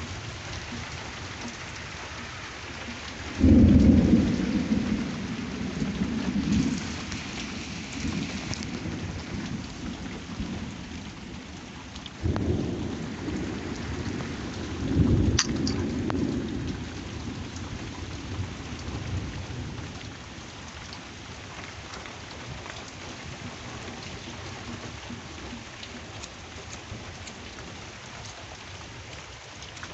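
Steady rain with rolling thunder: the loudest rumble breaks a few seconds in, with two more about twelve and fifteen seconds in, after which only the rain continues.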